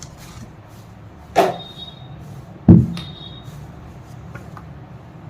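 Two knocks from objects being handled, about a second and a half apart; the second is louder and deeper.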